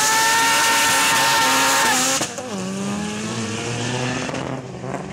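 Tuned Audi TT's engine launching hard off a drag-strip start line, held at high revs for about two seconds. The pitch then drops sharply at a gear change and climbs again as the car pulls away and fades.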